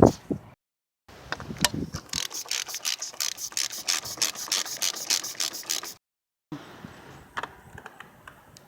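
Ratchet wrench clicking rapidly and evenly, about seven clicks a second for several seconds, as the oil filter housing cap is screwed down over a new filter cartridge.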